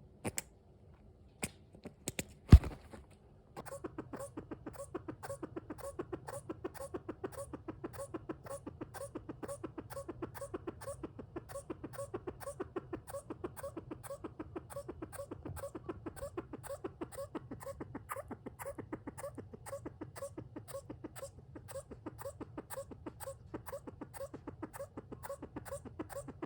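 Senegal bushbaby (lesser galago) calling in a long, even series of short, rapidly repeated calls that starts a few seconds in. Before it come a few sharp clicks or knocks, one of them loud.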